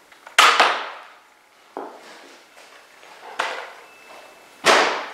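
Sharp plastic clacks and knocks from a Nerf Doomlands 2169 blaster being handled: a quick loud double clack about half a second in, lighter knocks a little after one and a half seconds and at about three and a half seconds, and another loud clack near the end.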